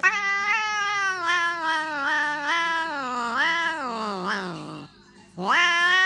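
A tabby cat gives one long, drawn-out meow whose pitch wavers up and down and then falls away, trailing off after nearly five seconds. After a short pause it starts a second meow that rises in pitch.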